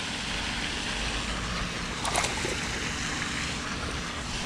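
Steady rushing outdoor noise of water and wind at a rocky lake edge, with a brief knock about two seconds in.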